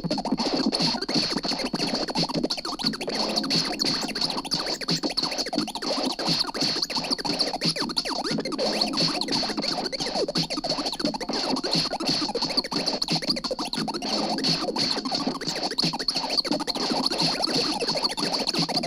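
Lo-fi experimental noise music: a dense, crackly churn of scratchy clicks with a steady high tone above it.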